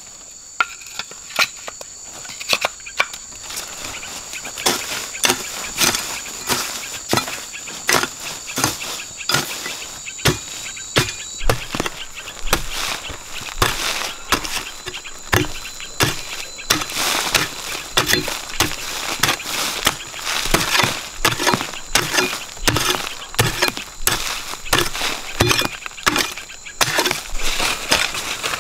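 Long-handled digging tool chopping into dry, crumbly soil, about one strike a second, each hit followed by a scatter of loose dirt. A steady high insect drone runs underneath.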